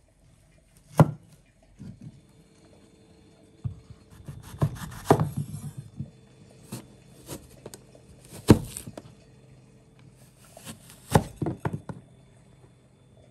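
Kitchen knife slicing firm fruit on a wooden cutting board: irregular sharp knocks of the blade striking the board, some single and some in quick clusters.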